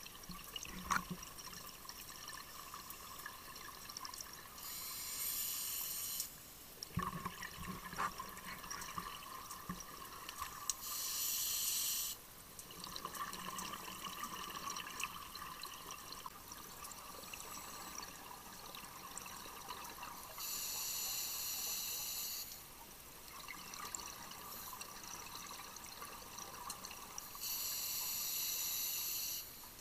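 Scuba diver breathing underwater through a regulator: four bursts of exhaled bubbles, each about two seconds long and coming every seven to eight seconds, with a quieter hiss and a few clicks between breaths.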